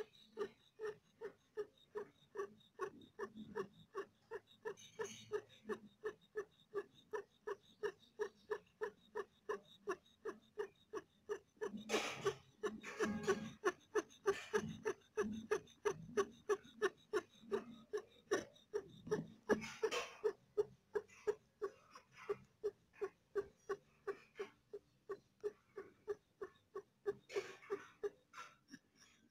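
A cat giving birth making a steady run of short whimpering sounds, about three a second, with a few louder, harsher sounds around the middle and near the end. This is the cat's strange sound during the birth, when she feels pain.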